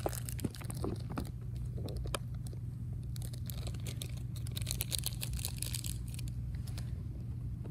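Hands handling doll clothes and small packaging on a wooden table: a few light taps early on, then a stretch of plastic crinkling partway through, over a steady low hum.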